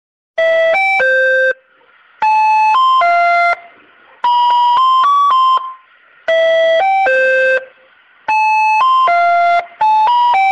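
Intro jingle: a bright electronic chime melody in short phrases of three or four notes, a new phrase about every two seconds, starting about half a second in, with a faint hiss between phrases.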